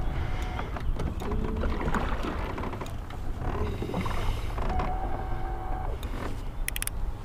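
Water moving around a small fishing boat over a steady low rumble, with a quick run of sharp clicks near the end.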